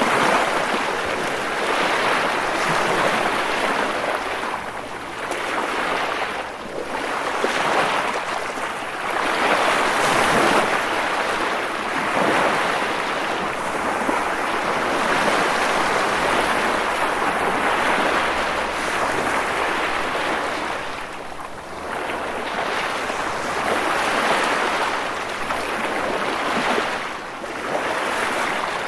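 Sea waves breaking against rocks, a continuous rushing wash that swells and ebbs every few seconds with brief lulls between surges.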